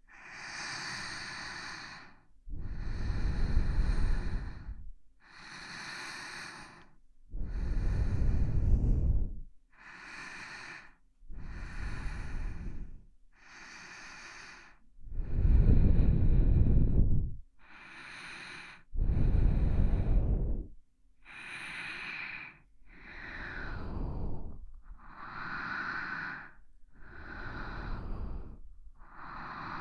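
Close-miked ASMR breathing: slow, even in-and-out breaths, about one every two seconds. Some breaths are louder and deeper than others and carry a low rumble.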